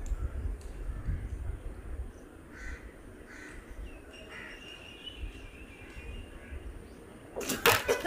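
Quiet outdoor ambience with low wind rumble on the microphone and faint bird calls, while a woman drinks bitter gourd juice. Near the end comes a sudden burst of loud noise.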